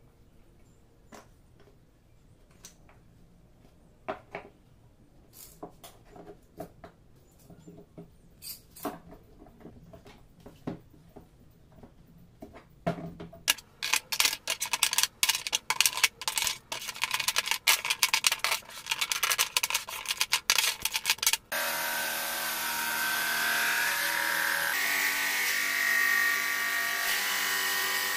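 Scattered light taps and clicks as small wood pieces are handled. Then dense, rapid ratcheting clicks as the triggers of quick-grip bar clamps are squeezed onto glued-up wood strips. From about two-thirds of the way in, a benchtop thickness planer runs with a steady motor sound.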